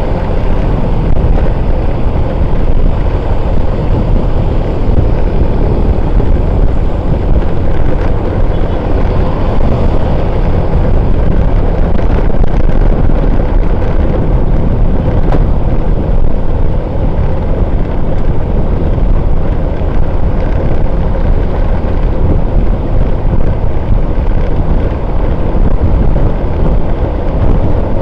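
Heavy wind buffeting on the camera microphone of a moving motorcycle, over a steady engine and road rumble from the surrounding motorbike traffic.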